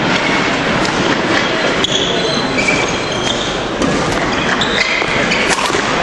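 Badminton rally on a wooden sports-hall floor: short high squeaks of court shoes and sharp clicks of racket strings on the shuttlecock, over a steady background hubbub.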